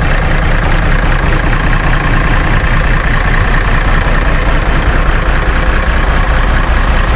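Cummins 444 six-cylinder diesel of a 1990 Peterbilt 362 cabover idling steadily, a deep even rumble.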